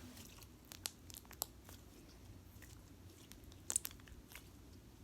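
Butter slime being squished and stretched by hand, giving scattered small sticky clicks and pops, with a couple of louder ones about three-quarters of the way through.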